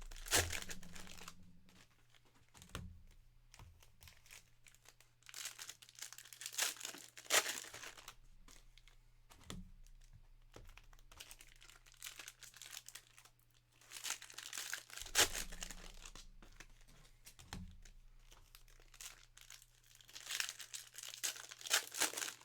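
Plastic wrappers crinkling and tearing in several bursts a few seconds apart as sealed trading-card packs and boxes are opened by hand, with quieter handling between.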